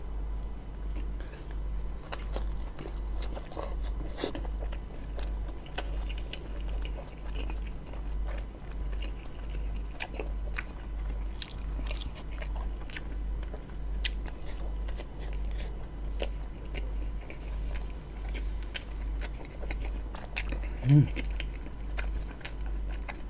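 Close-miked chewing of a soft bread roll stuffed with minced meat and sauce (roti John): wet mouth clicks and smacks, with a low hum underneath. Near the end there is a short low sound from the mouth.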